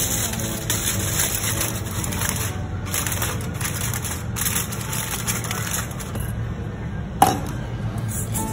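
Aluminium foil crinkling as it is pressed down over a metal mess tin, over background music. Near the end there is one sharp, ringing clink, like a stainless steel bowl set down on the table.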